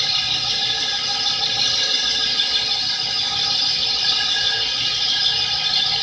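CNC wheel lathe cutting the face of a spinning aluminium alloy wheel: a steady high-pitched hiss from the tool on the metal, with several steady tones and a low hum from the running machine.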